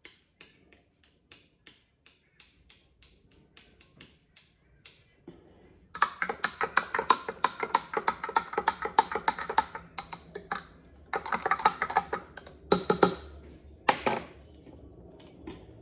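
Knife chopping on a cutting board: a few spaced taps, then about six seconds in a fast run of chopping strokes, roughly six a second, broken by short pauses, with a couple of single strikes near the end.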